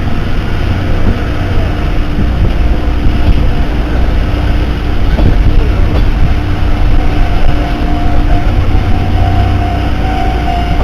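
Steady rumble of a steam-hauled passenger train running on the rails, heard from a carriage window. A steady high tone joins in about seven seconds in.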